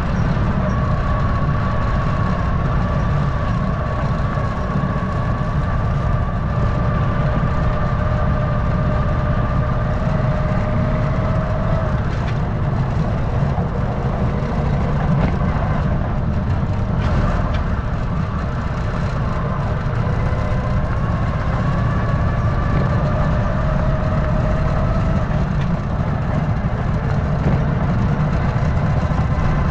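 Steady low outdoor rumble of wind and fast-flowing floodwater, with a faint wavering hum above it.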